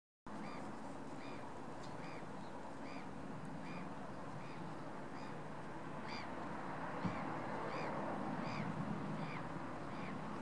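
Distant, steady rumble of a climbing Airbus A330 airliner's jet engines, growing a little louder in the second half. Over it a bird calls again and again, a short call about every three-quarters of a second, and there is one sharp click about seven seconds in.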